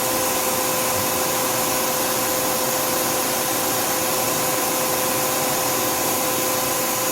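Back live-tool spindles of a 2011 Tsugami S206 CNC Swiss lathe running without cutting at 4,000 RPM: an even hiss with a steady whine.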